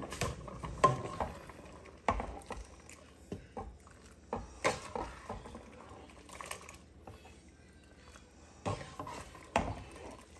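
Irregular clinks and knocks of a metal pot and utensil against cookware as cooked ziti noodles are moved from a stockpot into a crock pot of sauce, a few sharper knocks standing out among softer clatter.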